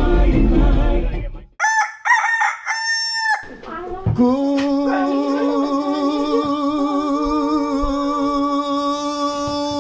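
Music with a steady beat cuts off, then a short two-part crowing call rings out about two seconds in. From about four seconds, a man's voice holds one long, wavering note.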